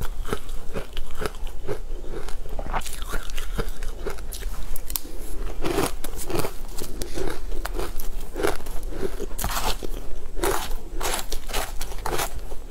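Close-up eating sounds of a person biting and chewing a crunchy, crumbly food, with many irregular sharp crunches and crackles.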